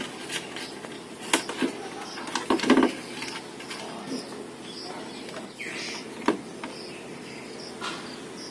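Scattered clicks and knocks as a fog light and its wire are handled against a plastic scooter front panel, loudest between about two and three seconds in. Behind them, insects chirp steadily at a high pitch.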